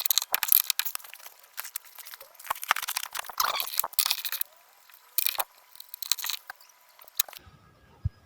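Ratchet socket wrench clicking and metal clinking as the strut's top mount bolts are undone with a 17 mm socket. The clicks come in quick runs and stop about seven seconds in.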